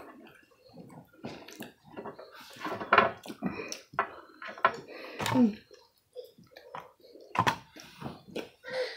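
Close-up chewing and mouth noises of people eating bone-in chicken wings: irregular wet smacks and small clicks, with a brief low murmur about five seconds in.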